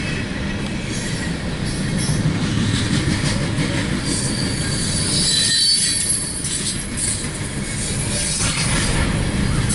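Empty grain train's freight cars rolling past, a steady rumble of wheels on rail, with high wheel squeal partway through.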